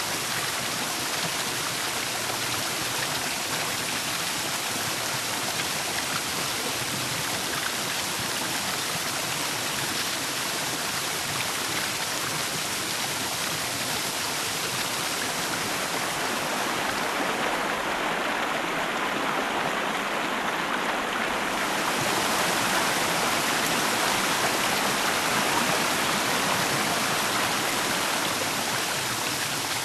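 Running water of a stream: a steady rushing that swells slightly about two-thirds of the way through.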